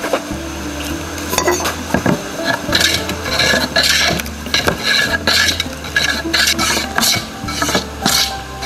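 A few knocks, then a traditional Chinese wooden hand plane shaving a short piece of wood, in quick rasping strokes about two a second from about two and a half seconds in.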